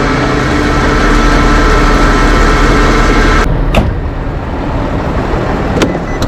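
Motor vehicle engine running with steady road noise. About halfway through, the noise drops abruptly, followed by a few sharp clicks.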